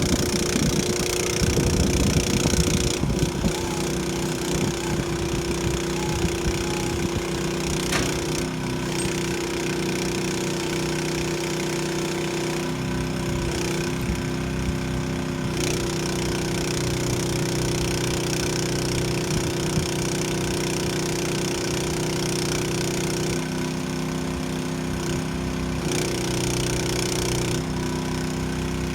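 An engine running steadily, its pitch shifting slightly a few times, with a few brief knocks over it.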